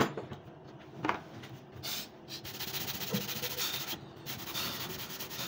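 A stiff hand brush scrubbing rapidly over carved wood, a dry scratchy hiss of quick strokes from about two seconds in. Two sharp knocks come before it, at the start and again about a second in.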